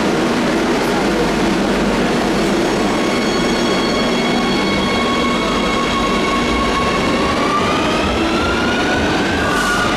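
Metro train running with a steady rumble of wheels on rail and a stack of electric motor whine tones, which start rising in pitch about seven seconds in as the train picks up speed.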